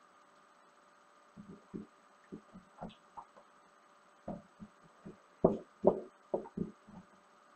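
Irregular soft thumps and knocks from hands working a 3D-printed plastic mold apart to free the cured silicone part, loudest a little past halfway.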